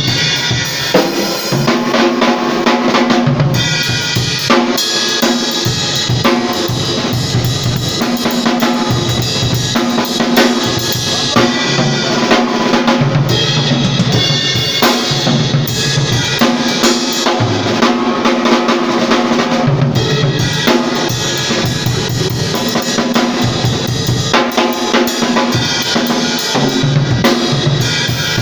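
Live band music led by a drum kit playing a busy groove of kick, snare and cymbals over lower pitched instruments whose notes change every few seconds.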